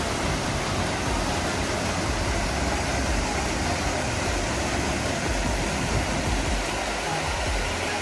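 Lower Düden waterfall, a steady rushing roar of falling water.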